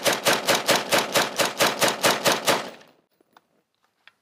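A dust-caked M4-pattern AR-15 in 5.56 mm firing a fast string of semi-automatic shots, about six a second, that stops about two and a half seconds in. The rifle is still cycling with fine dust and sand packed inside its receiver.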